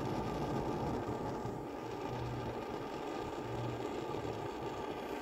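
Barthel petrol camping stove burning steadily: the even hiss of its vaporising burner, with a low hum that swells and fades a few times.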